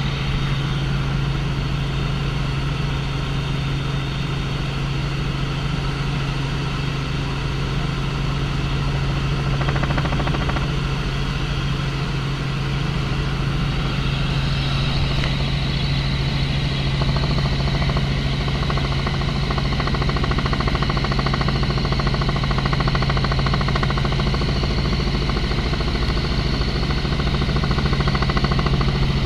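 Helicopter engine and rotors running in flight: a steady, loud drone with a strong low hum.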